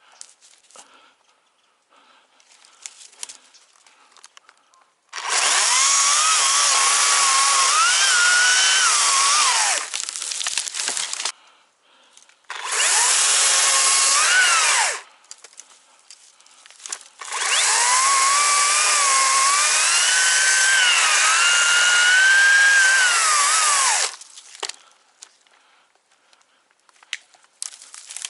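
Chainsaw cutting wood in three bursts, the longest about seven seconds, with the motor's pitch sagging and rising as it works through the cut. Faint clicks and knocks come between the cuts.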